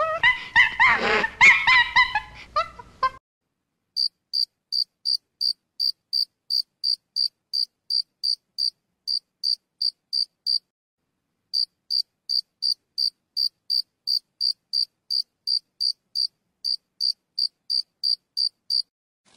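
A loud, pitched animal call for the first three seconds, then a cricket chirping: short high chirps in an even rhythm, about two and a half a second, with a pause of about a second near the middle.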